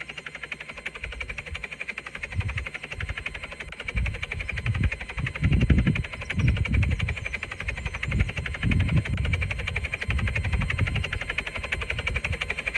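Helicopter running with a steady, very rapid chopping pulse. Irregular low rumbles come in from about four seconds to about eleven seconds.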